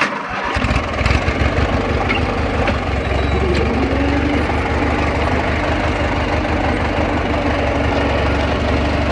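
Riding lawn mower's small engine starting up and settling into a steady idle.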